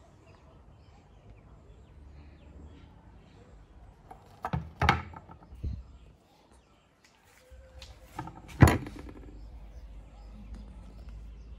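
A wooden cutting board and kitchen knife being handled and set down on a wooden table: a few knocks, the loudest a single sharp knock about two-thirds of the way through.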